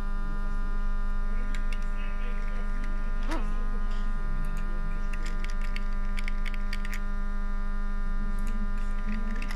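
Killer Body smoke generator for 1/10 RC cars running, its small fan motor giving a steady hum with many overtones and a brief wobble in pitch about three seconds in. Light clicks come and go through the middle.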